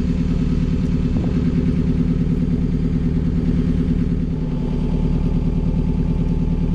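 Hire cruiser's inboard diesel engine running steadily at low revs.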